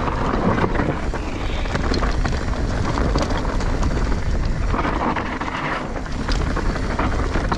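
Wind rushing over a helmet or body camera's microphone during a fast mountain-bike descent, with a steady low rumble and scattered clicks and knocks from the bike going over rough trail.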